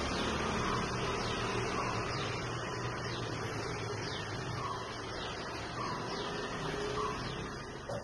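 Steady outdoor background of low hum and rumble, with faint short bird chirps every second or so; the sound fades out right at the end.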